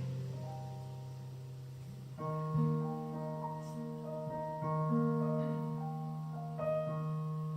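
Keyboard playing a slow intro of held chords, a new chord about every two seconds, before the vocal comes in.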